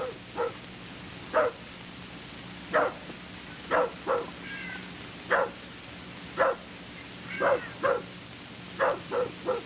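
A dog barking: about a dozen short, sharp barks at irregular intervals, some in quick pairs, over a steady low hum.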